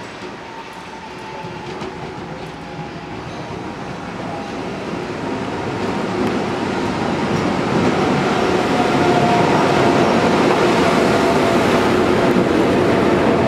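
MaK G2000 diesel-hydraulic locomotive approaching at low speed and passing close by. Its diesel engine and wheels on the rails grow steadily louder as it comes alongside.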